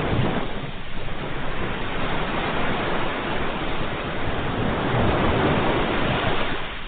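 Ocean surf washing in, a continuous rush of water that swells about five seconds in and ebbs near the end.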